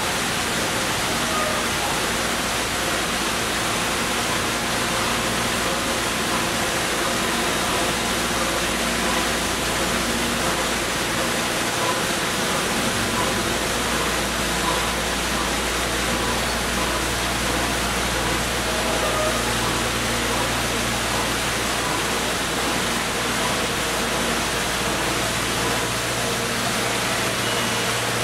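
Steady rushing of a waterfall and river, with a faint low hum underneath from the train crossing the trestle above.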